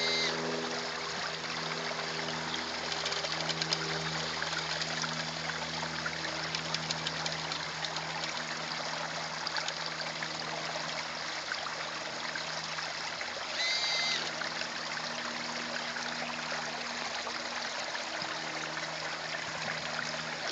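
Water trickling and running steadily in a garden pond, with a faint steady low hum underneath.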